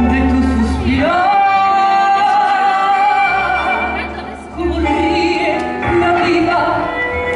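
A woman singing a tango song live over instrumental accompaniment, holding one long note from about a second in, with a steady bass beneath.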